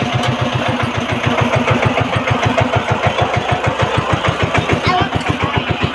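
A small engine running steadily with a fast, even chugging beat of about seven pulses a second, typical of the machinery used to work a rice field.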